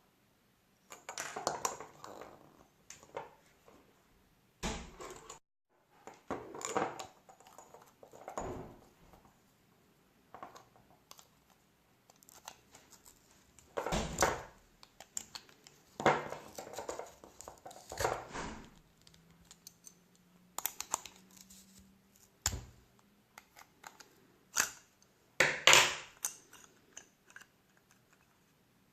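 Hand work on small parts: irregular scraping, rustling and sharp clicks of tools and plastic or metal pieces, coming in about a dozen separate bursts.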